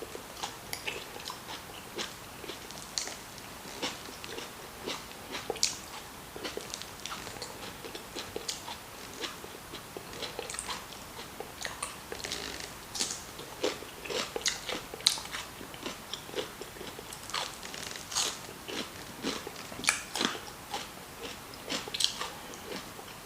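Close-up chewing and biting of someone eating a meal of jollof rice, suya and fried plantain, with irregular wet mouth clicks several times a second.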